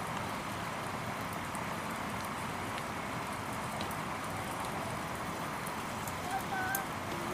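Steady, even background noise like a hiss, with a few faint short high-pitched calls about six seconds in.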